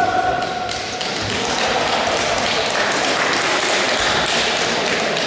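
Spectators cheering and clapping in a large hall as a grappling bout is stopped, after a short tone at the very start.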